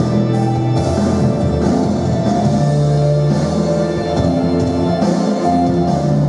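Recorded instrumental music with drums and guitar, loud and continuous, played over the hall's sound system as accompaniment to an acrobatic gymnastics routine.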